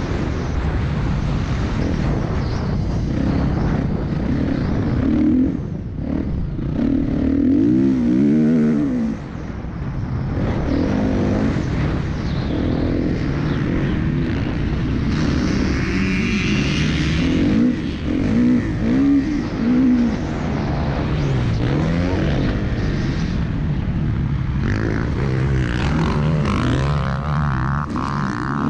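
Motocross dirt bike engine heard from on board while it is ridden round a track, revving up and dropping off again and again, the pitch rising and falling with throttle and gear changes, over wind rush.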